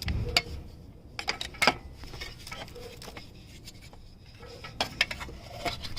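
A few scattered light metallic clicks and taps, a cluster of them near the end: a new oxygen sensor being handled and started by hand into its threaded exhaust port.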